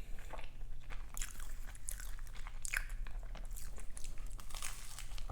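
Close-miked chewing of a crumbly meat pie's pastry crust, with many small irregular crunches and crackles.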